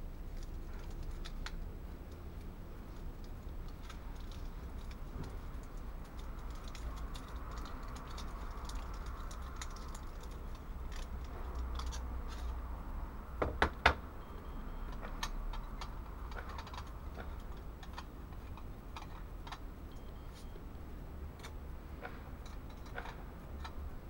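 Light scattered clicks and small metal clatter from hands handling a tiny folding metal pocket stove and Esbit fuel tablets, with a louder pair of sharp clicks about halfway through.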